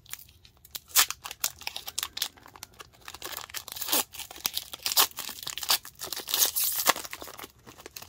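Foil-lined hockey card pack wrappers being torn open and crinkled by hand. It is a run of irregular sharp rips and crackly rustles, loudest about a second in and again around five to six and a half seconds.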